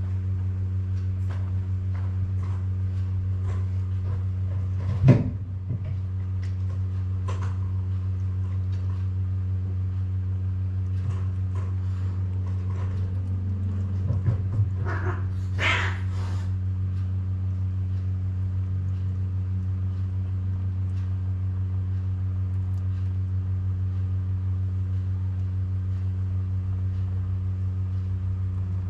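Kittens nursing and jostling at a calico mother cat, heard as a single sharp knock about five seconds in and a few short sounds in the middle, over a steady low hum.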